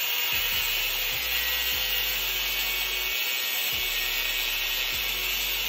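Angle grinder with a cutoff disc cutting through the steel V-band flange on a turbocharger housing. The disc grinds into the metal in one steady, unbroken cut.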